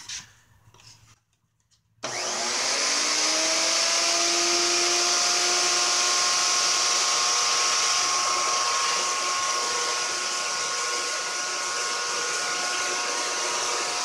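Table-mounted wood router with a dovetail bit switched on: the motor spins up about two seconds in, rising in pitch, then runs at a steady high whine.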